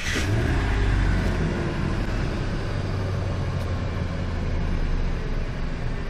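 Ford E250 van's Triton V8 catching on a restart, revving up briefly in the first second, then settling into a steady idle.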